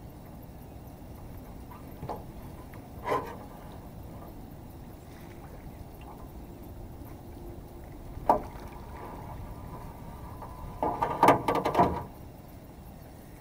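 Hollow knocks against an aluminum boat hull while a salmon is being netted: a few single knocks, then a quick run of loud clattering knocks near the end.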